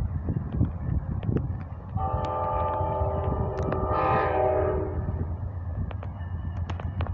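Amtrak locomotive's multi-chime horn sounding one long blast of about three seconds, starting about two seconds in: the train's warning as it approaches the grade crossing. Wind rumbles on the microphone throughout.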